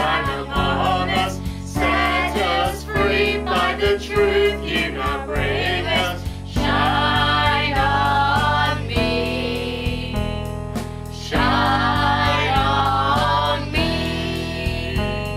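Christian worship song: voices singing over instrumental backing, short sung phrases at first and then long held notes through the middle.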